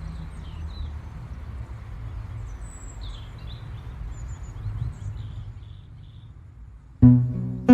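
Small birds chirping over a steady low rumble. A plucked guitar chord comes in about seven seconds in.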